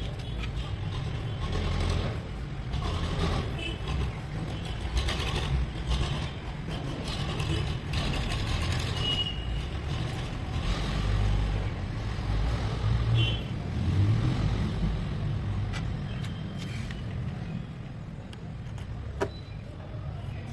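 A vehicle engine running steadily, with street-traffic noise and a few short high beeps.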